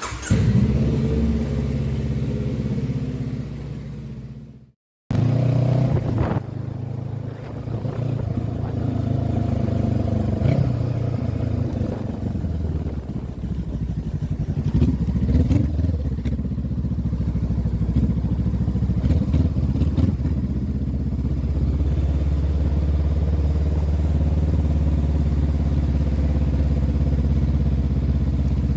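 Honda CB500F 471 cc parallel-twin engine running through an aftermarket exhaust while ridden, its pitch rising and falling several times with the throttle. The sound cuts out completely for a moment just before five seconds in.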